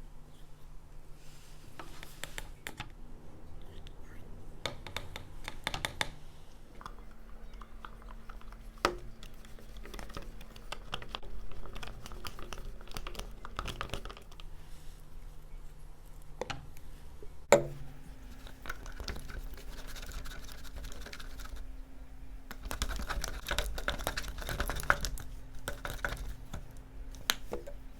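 Slime being mixed by hand in a bowl: scattered clicks, taps and scraping from stirring, with a few sharper knocks, the loudest about two-thirds of the way through, and a busier stretch of stirring near the end.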